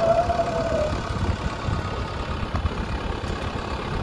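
JCB 3DX backhoe loader's four-cylinder diesel engine running steadily with a low, uneven rumble. A brief whine sits over it in about the first second.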